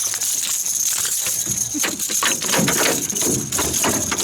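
Irregular knocks and clatter, with a steady high-pitched whine throughout and a few faint voices.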